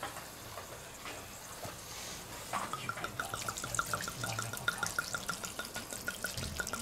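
Red wine glugging out of a glass wine bottle as it is poured into a stew in a cast-iron Dutch oven: a fast, even run of glugs that starts about two and a half seconds in.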